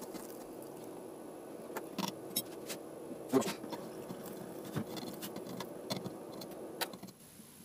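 Electric muffle furnace humming steadily at hardening temperature, with scattered light metallic clicks and clinks. The hum cuts out about seven seconds in as the furnace is switched off to cool.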